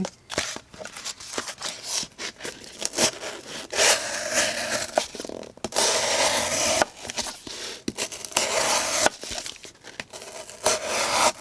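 Knife blade slicing through cardboard in several rasping, tearing strokes, the longest about a second, from a few seconds in, with small clicks of handling between them. The blade is the Ultra-X Cobra linerlock's 440C steel, on its out-of-the-box edge, which could use a little more honing.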